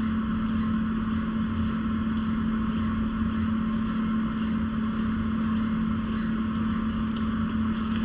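A small motor or engine running steadily, with a strong even hum.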